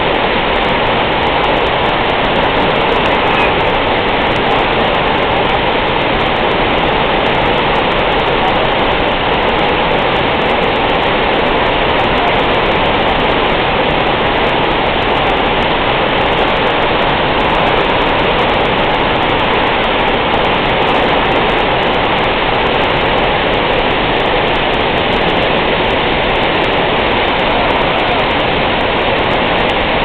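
Steady, loud rush of a large waterfall, its water dropping about 65 metres onto rocks.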